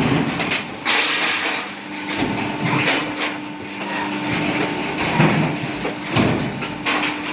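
High-pressure can press running: a steady machine hum under a series of irregular metallic knocks and clanks as cans are pressed.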